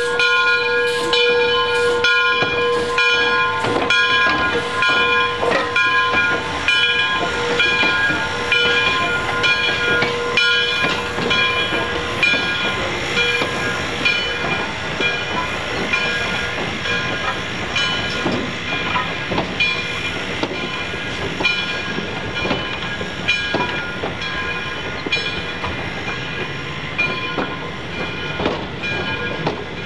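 Steam locomotive bell ringing in steady repeated strikes that fade out over the first half, over the hiss, rumble and clatter of the moving train.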